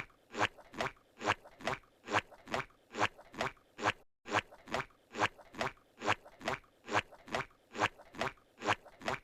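Squidward's cartoon walking sound effect: a steady run of footsteps at a walking pace, a little over two a second, with a brief break about four seconds in where the loop restarts.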